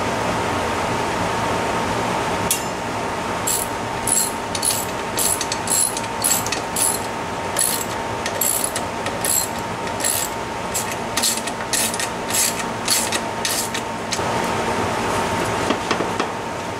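A hand tool clicks in short strokes, about two a second, as the exhaust's mounting nuts are tightened on a moped. The clicking starts a couple of seconds in and stops a few seconds before the end, over a steady background hum.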